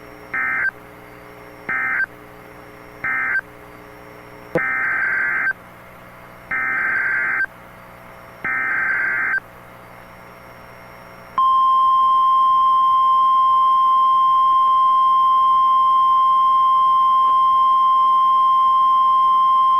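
Emergency Alert System signal: three short, buzzing SAME data bursts that mark the end of the previous warning, then three longer SAME header bursts for the new warning, then the single-pitch weather radio warning alarm tone held steady for about nine seconds.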